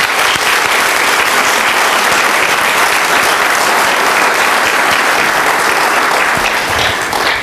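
Audience applauding, steady, then dying away near the end.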